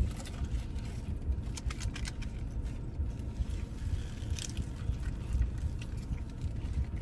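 Paper food wrappers crinkling, with scattered small crackles and clicks over a steady low rumble.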